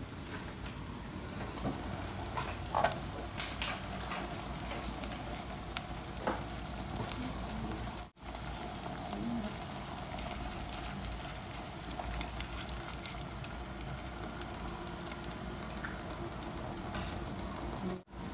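Water boiling in a stainless steel pot on a gas stove, a steady bubbling hiss, with a few sharp clinks of the pot lid in the first several seconds.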